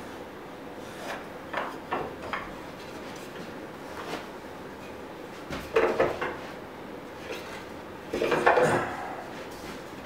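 Wooden boards being handled and set down on a miter saw's table against the fence: short light knocks and scrapes, with two louder clusters of wood knocking about six and eight and a half seconds in.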